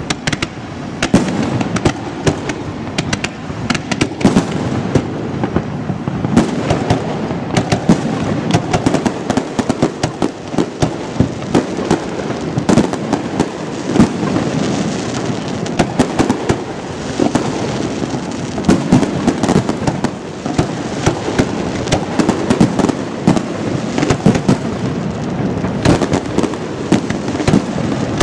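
Aerial fireworks display: shells bursting in rapid, near-continuous succession, many sharp bangs a second over a steady deep rumble.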